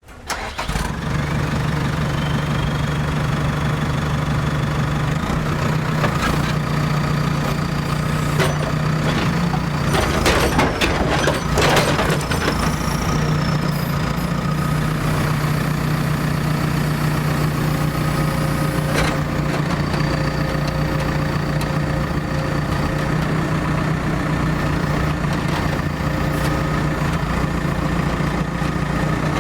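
Heavy construction machine engine running steadily at an even idle, with scattered metal clanks and knocks, a cluster of them about ten to twelve seconds in.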